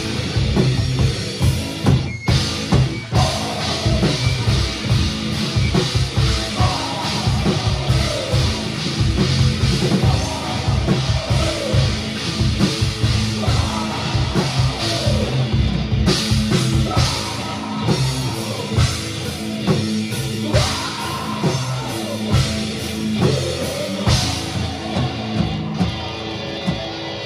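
A rock band playing a heavy song live, with a drum kit pounding steadily under the guitars.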